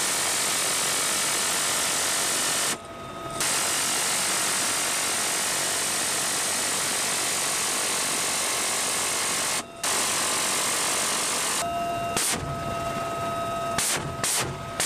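A helicopter door-mounted six-barrel minigun firing in long continuous bursts, a solid buzz lasting several seconds each, with brief pauses, then several short bursts near the end. In the pauses the helicopter's steady high engine whine is heard.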